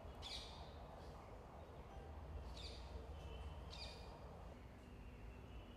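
Faint ambience with a low, steady rumble, over which a small bird gives three short, high chirps, the first near the start and the other two about two and three and a half seconds later.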